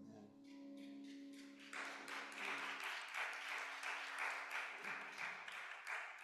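The song's last piano chord rings out and fades. From about two seconds in, the congregation applauds with a dense patter of clapping that dies away at the end.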